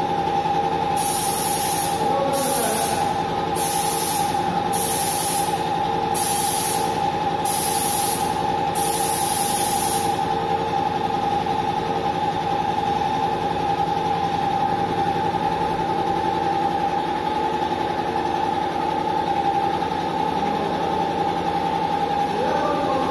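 Paint spraying rig's motor or compressor running with a steady, loud hum. Over the first ten seconds the spray gun hisses in seven short spurts as its trigger is pulled, the last one a little longer.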